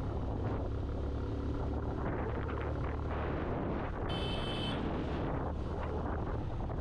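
Motorcycle engine running steadily as the bike picks up a little speed, with wind and road noise. A brief high-pitched tone sounds about four seconds in.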